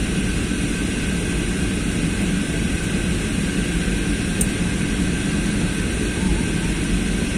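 Steady cabin drone of an Airbus A320-family jet airliner descending to land: engine and airflow noise heard from inside the cabin, with a few steady whining tones on top. One brief faint tick about four and a half seconds in.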